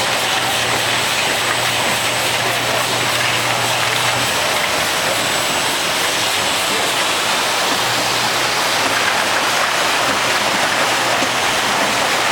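Steady machinery din from a running automated container-handling line, an even rushing noise. A low hum under it drops out about four seconds in and comes back near eight seconds.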